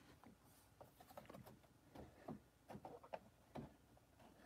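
Near silence with faint, scattered small taps and rustles of hands handling a long ruler held against the layout's wooden fascia while marking a cutting line.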